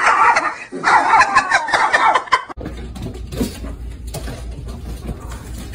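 Loud, high, cackling human laughter that cuts off abruptly about two and a half seconds in. A quieter stretch with a low hum and a few soft knocks follows.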